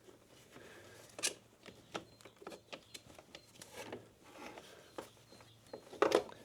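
Clicks, taps and rubbing as a trim panel on a BMW R1250 GSA is wiggled and tugged by hand to work it free, with a sharper click a little over a second in and a louder knock near the end.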